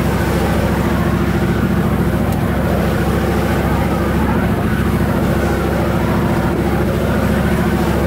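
A boat's engine running at a steady pitch, heard from on board while under way.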